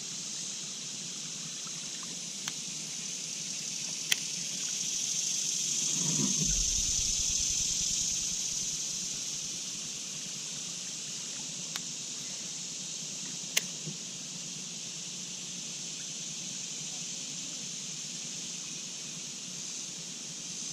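Steady high-pitched drone of an insect chorus from the trees, swelling a few seconds in and easing off after about ten seconds. A few sharp single clicks and a brief low rumble about six seconds in.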